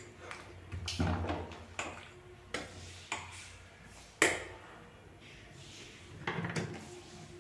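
Steel spoon clinking and scraping against a stainless-steel pot while stirring thick curry, a handful of sharp clinks with the loudest about four seconds in.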